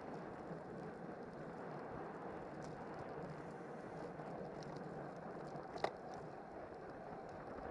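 Steady rush of wind over the microphone and road-bike tyres on asphalt at race speed, with one sharp click late on.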